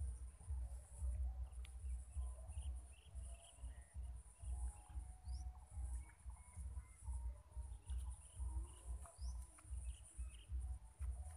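Uneven low rumble on the microphone, with a steady high-pitched insect drone and scattered short bird chirps over it.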